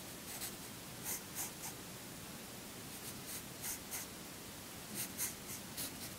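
Pencil sketching on drawing paper: short, scratchy strokes in little groups of two to four, with pauses between them.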